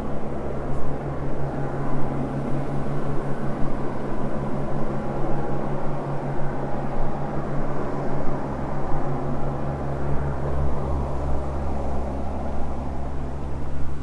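Wind buffeting the microphone in irregular gusts over a steady low hum.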